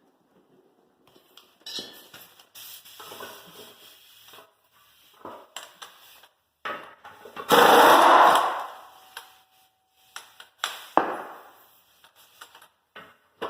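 Irregular metal clanks and bangs from work on a steel tractor rear rim, with one loud burst of clatter about eight seconds in that lasts about a second, and a sharp hit near eleven seconds.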